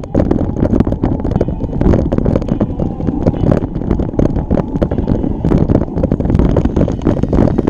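Wind buffeting the microphone on a moving bike, a loud, steady rumble broken by frequent small clicks and rattles.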